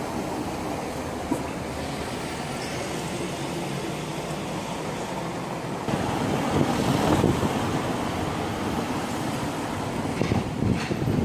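Steady outdoor background noise, a low rumbling haze with no clear single source. It gets louder about six seconds in, and a few short knocks come near the end.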